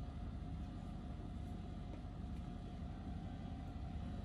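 Steady low engine rumble with a faint constant hum above it.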